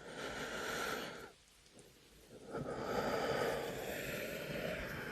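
A man's breathing: one breath of about a second, a short pause, then a longer breath of about three seconds.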